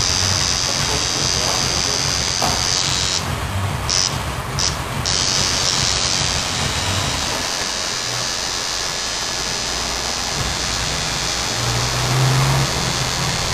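Tattoo machine buzzing steadily as the needle works ink into skin, cutting out briefly a few times a few seconds in.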